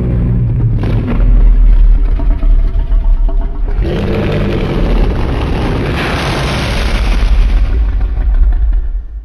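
Fan-made Godzilla sound effect: a loud, deep, rumbling monster sound. A second, harsher layered blast starts about four seconds in, swells, then dies away near the end.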